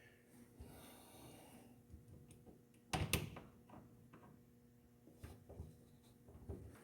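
Faint handling noises and a couple of sharp clicks or knocks about three seconds in, with a few smaller clicks later: a wired electrical outlet being pushed back into its metal wall box.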